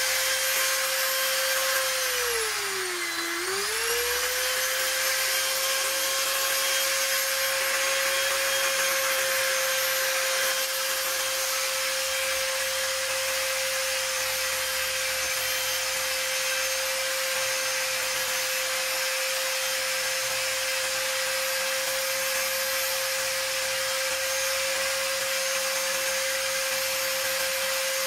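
Corded electric drill running steadily in a wooden jig, turning a flexible shaft to a rotary-tool handpiece: a steady motor whine that drops in pitch briefly about three seconds in, then comes back up and holds.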